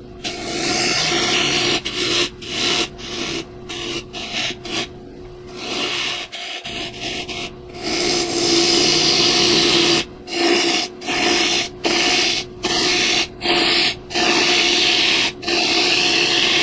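Gouge cutting rough-sawn walnut on a square bowl blank spinning on a Powermatic lathe: repeated hissing cuts broken by short pauses as the tool is lifted and repositioned, over a steady hum from the lathe. The cutting stops at the very end.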